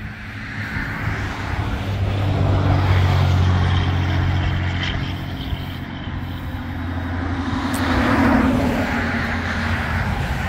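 Motor vehicles passing on a road, their engine hum swelling to a peak about three seconds in and again near eight seconds.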